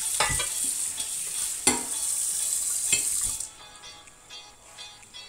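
Steady high hiss of food cooking on a gas stove, broken by three sharp knocks about a second and a half apart, the loudest a little before two seconds in. The hiss cuts off abruptly about three and a half seconds in, leaving faint background music with a steady beat.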